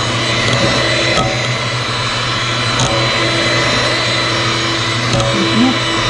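Electric hand mixer running steadily, its twin beaters whirring through a thin homemade ice cream base in a stainless steel bowl; a steady motor hum with a high whine.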